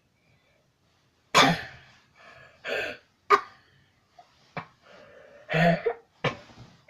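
A person in a coughing fit: about six harsh coughs in quick, uneven succession, starting about a second and a half in.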